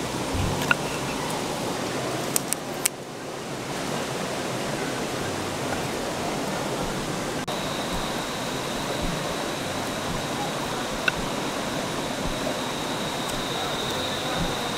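River water rushing steadily, with a few sharp clicks in the first three seconds and a steady high-pitched tone joining about halfway through.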